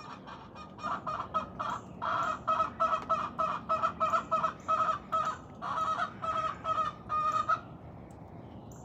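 Hen giving her high-pitched, repetitive pre-laying call: a run of short, honking calls, about three a second, that stops near the end. It signals that she needs to lay an egg, typical when the nest boxes she likes are taken.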